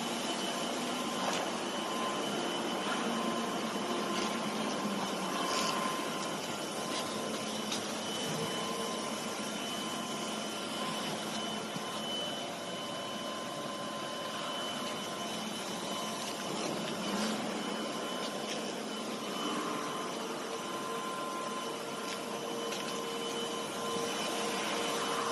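12 kW laser cutting machine running: a steady hiss of cutting with faint steady whines over it, and a lower whine coming in near the end.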